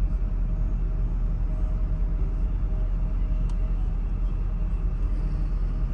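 Steady low rumble heard from the driver's seat of a 2014 Jaguar F-Type S convertible, its supercharged 5.0-litre V8 running, with a small click about three and a half seconds in.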